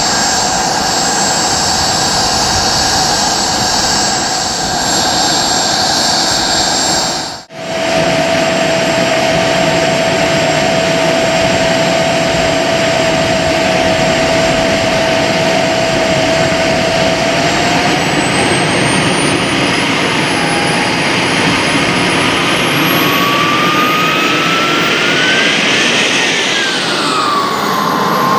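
Small turbine engine of a scale F-16 RC jet running at idle with a steady high whine over a rushing hiss. From about two thirds of the way in, the whine rises in pitch and then falls back as the turbine is throttled up to taxi.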